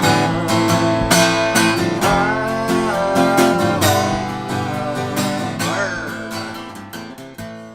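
Music: strummed acoustic guitar playing the closing bars of a song, fading out steadily toward the end.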